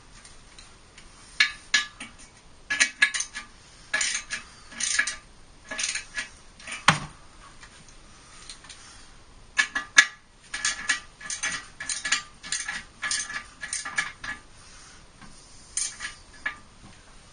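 Metal wrench clicking and clinking on a toilet's closet bolts as they are tightened, in short irregular runs of sharp metallic clicks.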